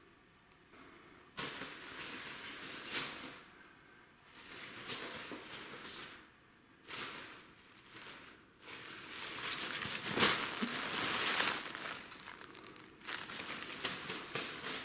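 Cellophane bag crinkling and rustling in bursts as a kitten plays inside it and drags it across a tile floor. There are short pauses between the bursts, and the longest, loudest stretch comes about two-thirds of the way through.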